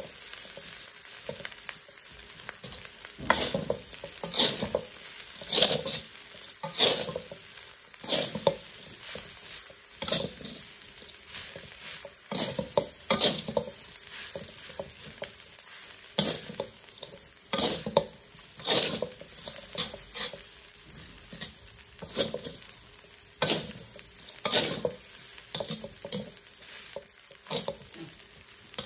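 Metal spatula scraping and turning fried rice in a large metal wok, a stroke about once a second, over a steady sizzle of frying.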